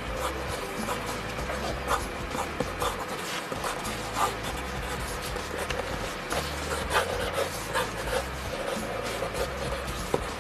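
Mechanical pencil sketching on paper: irregular scratchy strokes, some short and quick, some drawn out longer.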